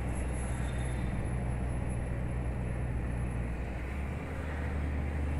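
Scania R440's DC13 inline-six diesel pulling hard at low revs up a steep climb under a heavy load, heard from inside the cab. Nearly four seconds in the sound dips briefly and the engine note changes as the Opticruise automated gearbox downshifts from eleventh to tenth.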